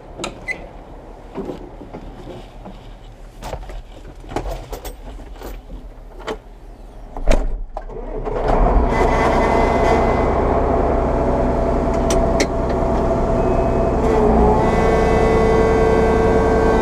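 A series of knocks and clicks, then a John Deere 9500 combine's diesel engine starting and settling into a steady run about eight seconds in, its pitch rising near the end as it is revved up.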